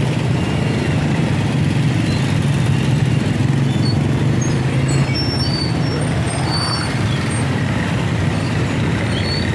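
Street traffic: a steady low drone of motorcycle and tricycle engines running close by, with a few short faint high chirps over it.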